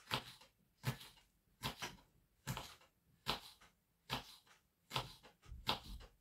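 Kitchen knife slicing red sweet pepper into strips on a wooden cutting board: a short knock of the blade on the board about every three-quarters of a second, eight cuts in all.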